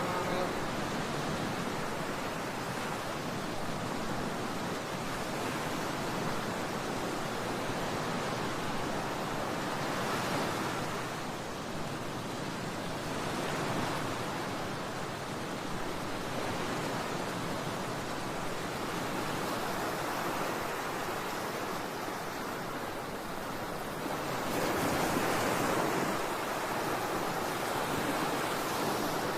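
Ocean surf: a steady rush of waves that swells and ebbs every few seconds, with a louder wave near the end.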